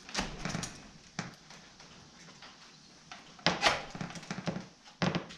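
Axe packaging being handled and folded on a wooden workbench: irregular rustling and crinkling with a few sharp knocks, the loudest about three and a half seconds in.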